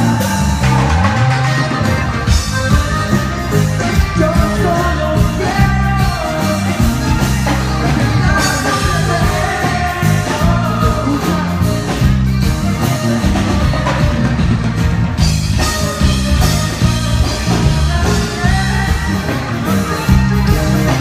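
A live band playing a song with a lead singer over bass, guitar and drums.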